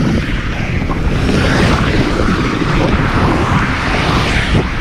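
Wind buffeting the microphone: a loud, continuous, uneven rumble with a rushing hiss over it.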